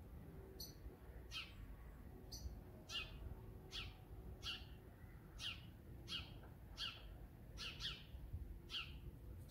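House sparrow calling a steady series of short, falling chirps, about one every 0.7 seconds. It is the agitated calling of sparrows with a kestrel feeding nearby on the roof.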